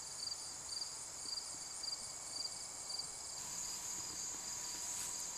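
Crickets and other insects chirping: a steady high-pitched trill with a short chirp repeating about twice a second. A little past halfway the trill gets louder.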